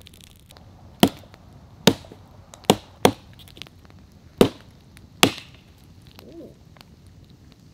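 Axe chopping into a log on the ground: six sharp blows, most about a second apart, two of them close together about three seconds in.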